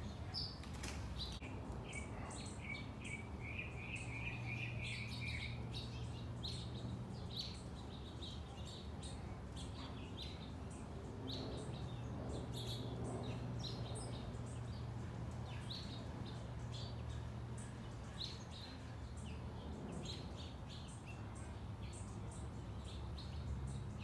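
Small backyard songbirds chirping: many short, high calls scattered throughout, with a quick rapid trill a couple of seconds in, over a steady low hum.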